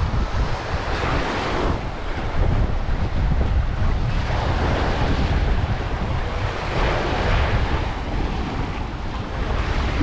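Sea surf washing onto a sandy beach, swelling in repeated surges, with steady wind rumbling on the microphone.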